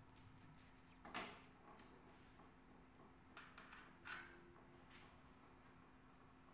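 A few faint metallic clicks and clinks as the steel oil pump drive sprocket is worked onto the splined primary shaft of a Honda CBX 1000 engine: one about a second in and a small cluster around three and a half to four seconds, some with a short high ring. Otherwise near silence.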